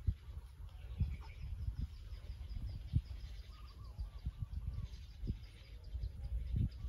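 Outdoor ambience: a low wind rumble with dull knocks on the microphone, and birds chirping behind it. A rapid run of high, thin chirps comes in the first half, then a few short whistled notes.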